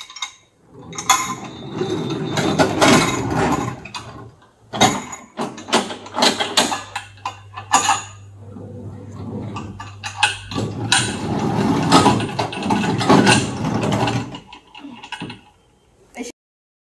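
Small metal model railway wagons on a coupler demonstration track rumbling as they roll, in two runs, with repeated metallic clanks and clicks as the wagons knock together and their couplers engage.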